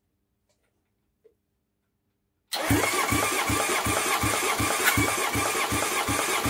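Honda CB750 inline-four engine turned over on its electric starter without firing, its plug leads tied out of the way, cranking steadily with an even beat of compression pulses about four a second. It starts about two and a half seconds in. This is a compression test on the number two cylinder, which reads low.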